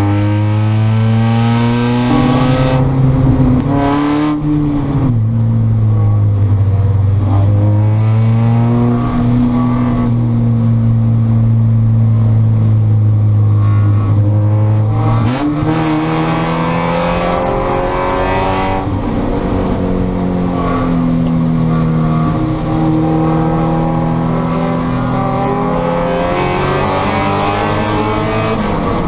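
Spec Miata's four-cylinder engine at race pace, its note rising and falling as it accelerates, lifts and changes gear, with a marked change in pitch about halfway through.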